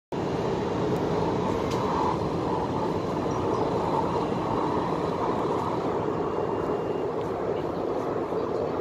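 Steady running noise inside a moving MTR West Rail Line C-Train carriage: an even rumble and hum of the train under way, with no sudden events.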